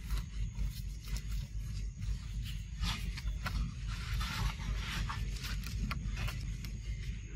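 Dry fallen leaves crackling and rustling in short, irregular bursts as something small moves over them, busiest around the middle, over a steady low rumble.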